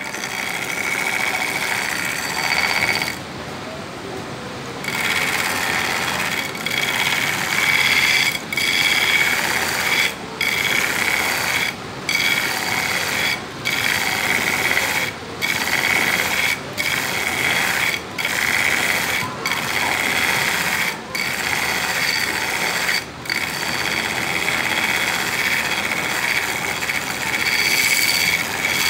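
Belt grinder's abrasive belt grinding a steel knife blade, a steady harsh hiss broken by short gaps about every second and a half between passes, with one longer pause about three seconds in. The blade is being ground to a distal taper, thinning gradually toward the tip.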